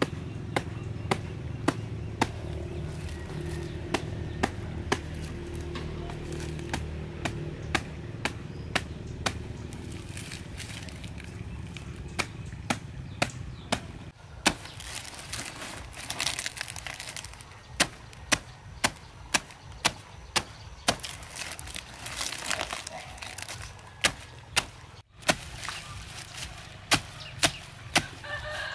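Knife chopping leafy plant stems: sharp, regular strikes about one or two a second, with leaves rustling between them in the second half. A low steady hum fills the first half, and a short animal call sounds at the very end.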